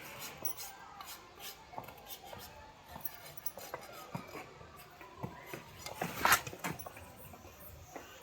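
Farrier's tools working an overgrown donkey hoof: irregular scraping and clicks of blade on hoof horn, with the loudest click about six seconds in.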